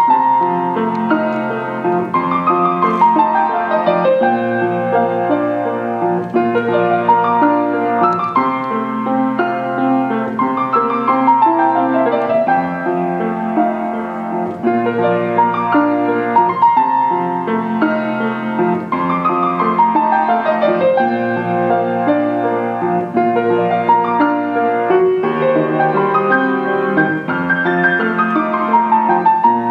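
Solo grand piano played in performance: sustained low notes and chords, with a quick falling run of notes about every eight seconds.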